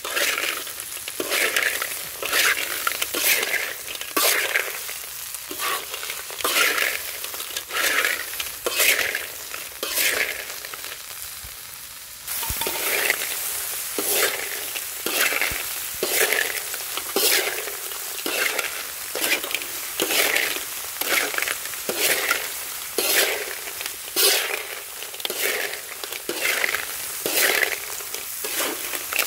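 Small river clams being stir-fried in a large flat metal pan: a metal spoon scrapes and turns the shells against the pan about once a second, over a steady sizzle. There is a short lull a little before the middle.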